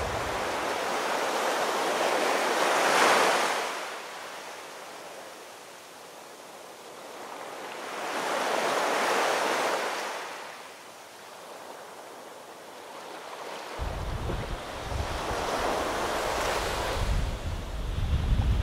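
Sea surf breaking and washing against a rocky shore in three slow surges several seconds apart, each swelling and falling away. About three-quarters of the way through, wind starts buffeting the microphone with a low rumble.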